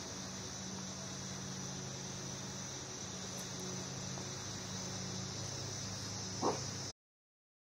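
Steady high-pitched chorus of crickets, with a low steady hum beneath it. A brief, louder sound comes near the end, and then all sound cuts off suddenly.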